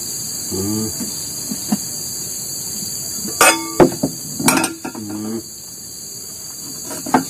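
Steady high-pitched chorus of forest insects, with a few sharp knocks and clanks about halfway through.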